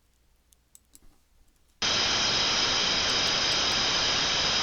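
A few faint clicks, then about two seconds in a loud, steady static hiss starts suddenly: the open-squelch FM receiver noise of an SDRPlay RSP1 software-defined radio tuned to a Family Radio Service channel (~462.5 MHz), with no signal yet received.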